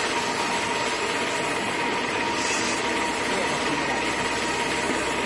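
A drum screen (rotary sieve) running steadily, its motor and turning steel drum giving a continuous mechanical hum with a faint steady whine.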